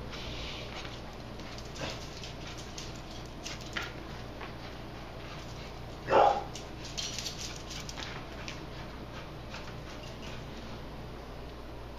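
A small dog gives one short, loud bark about halfway through, with a few faint clicks of its paws on a tile floor around it.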